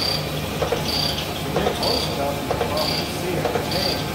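Sunnen CK-10 cylinder hone working up and down in a bore of a Chevy 2.2-litre inline-four block, lightly honing the cylinder wall. A short high tone repeats about once a second, five times, over a steady low machine hum.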